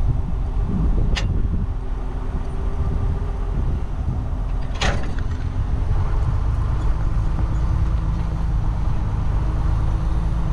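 Tractor engine running with a steady low drone. A sharp click comes about a second in and a brief rattle about five seconds in.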